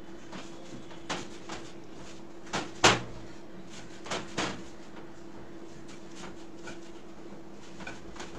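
Chhena and paneer being mashed by hand in a glass bowl: a few short knocks as the bowl is bumped against the counter, a pair about a second in, the loudest near three seconds and another pair about four seconds in, over a steady low hum.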